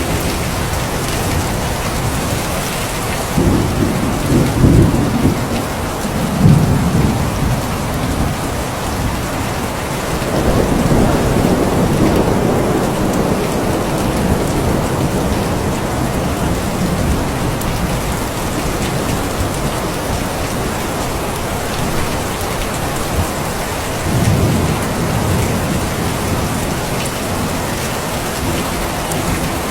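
Steady rain with rolls of thunder: a rumble a few seconds in, a longer roll from about ten seconds in, and a shorter one about twenty-four seconds in.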